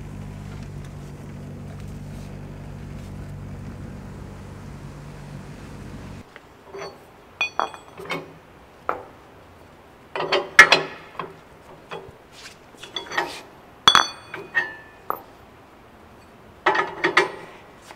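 An Acura Integra's engine running steady, heard from inside the cabin, cut off about six seconds in. Then a string of metal clanks and clinks, several ringing briefly, as the steel arms of a two-post car lift are swung under the car and the lift pads are set down.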